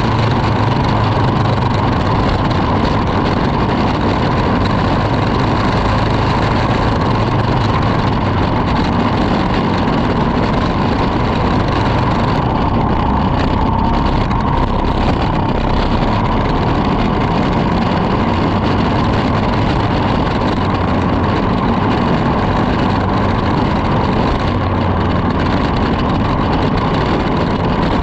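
Racing kart engine running steadily on the track, heard up close from the kart itself, with other karts' engines running just ahead.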